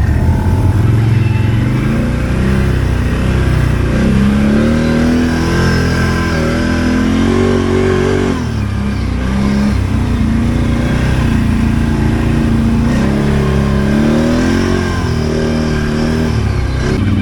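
ATV engines running under load and revving, their pitch rising and falling again and again, with a short drop in revs about eight seconds in.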